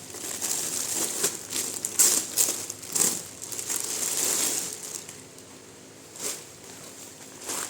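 Packaging being crinkled and rustled by hand for about five seconds, then a couple of short light taps near the end.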